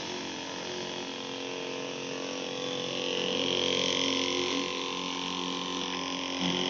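Small 12-volt DC sprayer pump motor, taken from a pesticide spray machine, running steadily with a hum while it pumps water out of the spray lance as a fine mist; a hiss swells in the middle.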